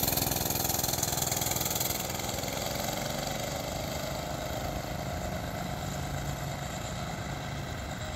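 Mega Moto 105cc mini bike's small single-cylinder four-stroke engine running as the bike pulls away, growing fainter over the first few seconds and then a steady distant hum.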